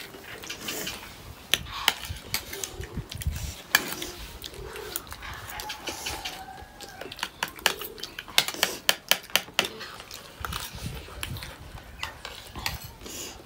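Metal spoons clinking and scraping on plates in quick irregular clicks as several people eat fast, busiest in the second half.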